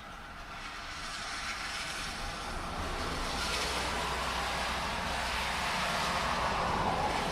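A car passing on a wet road. Its tyre hiss and low engine rumble swell steadily, peak near the end and begin to fade, over the steady hiss of rain.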